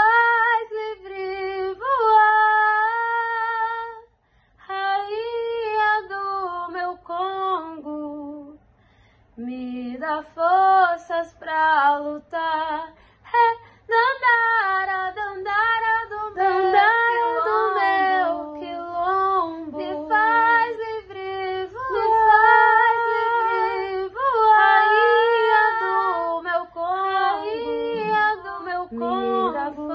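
A woman singing a slow melody alone, without accompaniment, in Portuguese; a few seconds in and again a little later the voice stops briefly between phrases, then carries on with long held and sliding notes.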